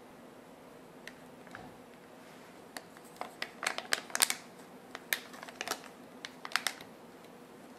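A flurry of light, sharp clicks and taps from small objects being handled, bunched in the middle seconds.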